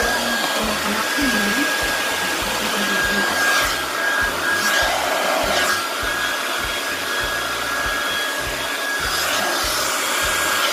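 Remington hair dryer fitted with a diffuser running steadily, a rush of air with a high motor whine. It cuts off right at the end.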